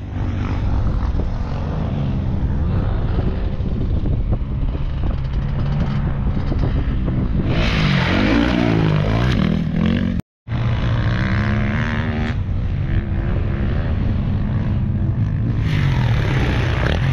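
Dirt bike engines running and revving on the sand, the pitch climbing and falling about eight to nine seconds in. The sound cuts out for a split second about ten seconds in, then carries on.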